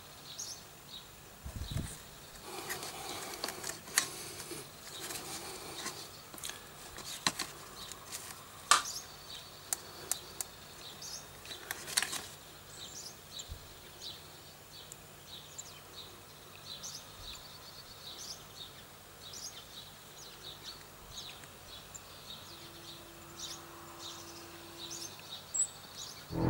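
Outdoor ambience with small birds chirping and calling on and off, broken by a few sharp clicks and a dull thump about two seconds in.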